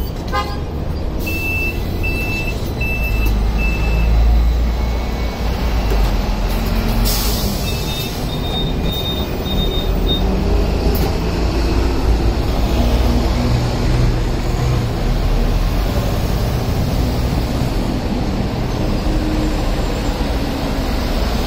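Hong Kong double-decker trams and road traffic: a steady low rumble of tram and traffic noise. Early on come four short, evenly spaced electronic beeps, and about eight seconds in a faster run of higher beeps follows a brief hiss.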